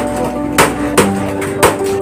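Background music with a steady, syncopated beat and held tones.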